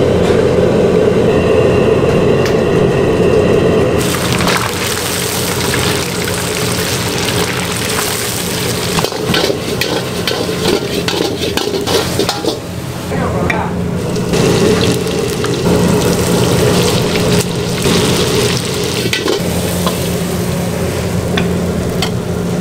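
Food frying and sizzling in a wok, with a metal spatula or ladle scraping and clanking against the pan, over a steady low hum.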